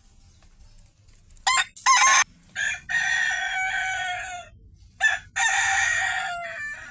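Bantam rooster crowing twice, each crow a few clipped opening notes followed by a long, drawn-out final note.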